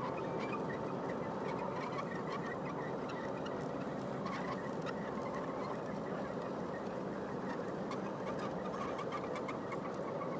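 G-scale model hopper cars rolling past on garden-railway track: a steady rolling rumble of wheels on rail with irregular clicks as the wheels cross rail joints. A thin, high wavering squeal runs over it the whole time.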